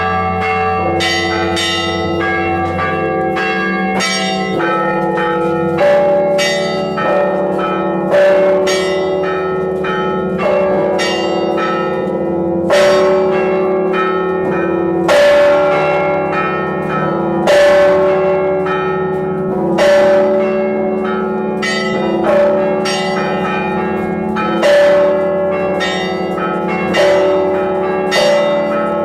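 Orthodox church bells ringing: a cluster of smaller bells struck in quick succession over long-sounding tones, and from about six seconds in a heavier bell strike about every two and a half seconds.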